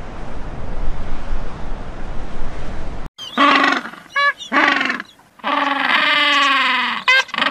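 A steady rushing noise for about three seconds, then king penguins trumpeting: a few short calls, one long call of about a second and a half that falls slightly in pitch, and quick calls near the end.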